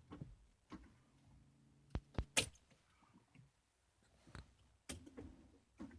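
A few faint, sharp clicks and a faint low hum, with no engine cranking: the ignition is switched to start on a 1986 Nissan 300ZX (Z31) that won't turn over, which the owner suspects is a dead battery.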